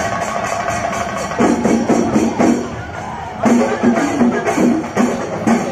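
Percussion music: drums and small jingling cymbals playing a fast, steady beat, with a short lull about three seconds in.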